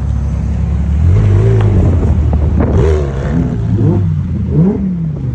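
Car engines revving, with the pitch climbing and dropping as the throttle is blipped repeatedly over a steady low engine drone.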